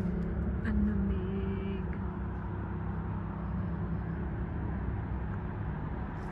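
Steady low machine hum and rumble, with a faint short high tone about a second in.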